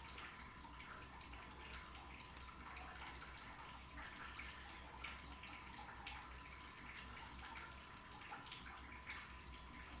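Faint scratching and small ticks of a pen writing on paper, over a low steady hum.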